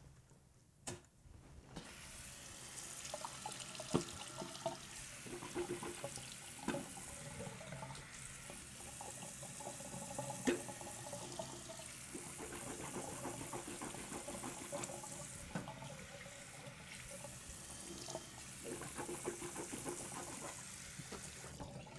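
Water running in a steady hiss, with scattered clicks and knocks.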